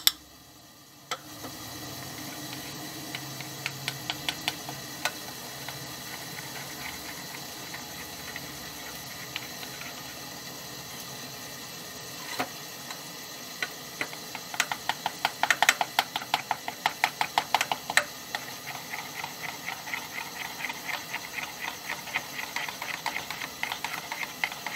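Metal spoon stirring spiced yogurt in a bowl, clinking against the bowl's side in quick runs of taps, at first a few scattered clicks, then fast and steady from about two-thirds of the way in. A steady hiss lies underneath.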